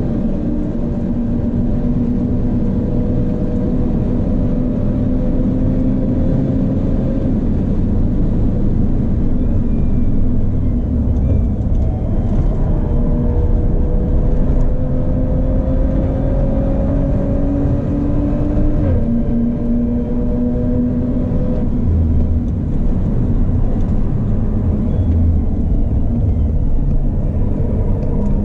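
Audi B9 RS4's twin-turbo 2.9-litre V6 with a Milltek exhaust, heard from inside the cabin, pulling under load with its pitch slowly climbing. The pitch drops with an upshift just after the start and again about two-thirds of the way through, over steady road and tyre noise.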